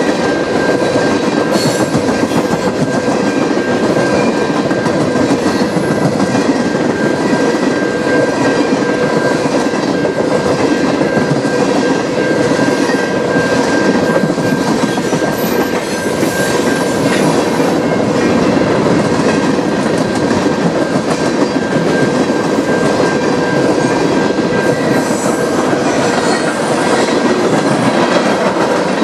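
Tank cars of a freight train rolling past, wheels clattering and rumbling steadily on the rails, with a constant high-pitched ring running through it.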